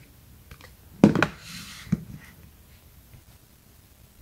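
White cardboard iPhone box and lid being handled and set down: a couple of sharp knocks about a second in, a brief rustle, then another light tap.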